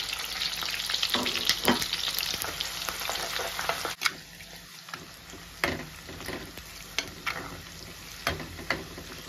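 Sliced shallots sizzling in hot oil in a clay pot, loud at first and dropping abruptly to a quieter sizzle about four seconds in. Scattered knocks and scrapes come from a slotted metal spoon stirring them against the pot.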